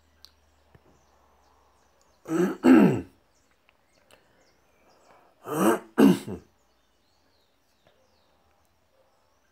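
A person clearing their throat twice, each time in two quick rasping bursts that fall in pitch, about three seconds apart.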